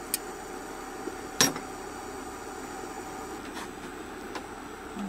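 Tableware clinking during hot-pot cooking: one sharp clink about one and a half seconds in and a few faint clicks, over a steady hum.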